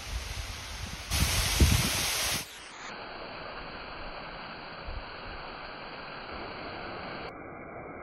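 Waterfall rushing steadily, a thin column of water splashing onto rock. About a second in the rush swells louder for a second and a half with low rumbling, like wind on the microphone, then settles back to a steady hiss.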